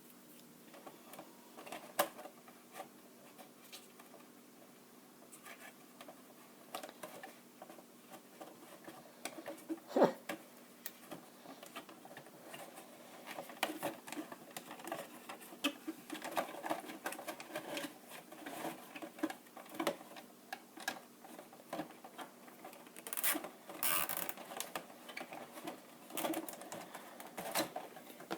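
Irregular small clicks, taps and rustles of hands working on a hard plastic RC truck body and its thin LED wires, with a few sharper clicks and a short burst of scraping noise near the end.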